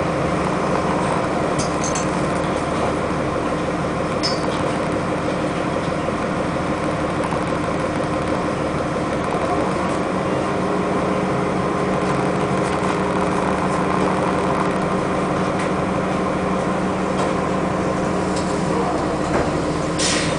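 City bus diesel engine running steadily, heard from inside the passenger cabin: an even drone with constant humming tones.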